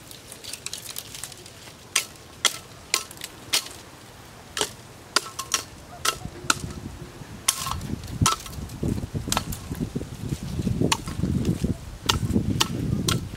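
Machete chopping dry branches: sharp, separate strikes, roughly one to two a second. In the second half, dry brush rustles and crackles as the cut sticks are handled.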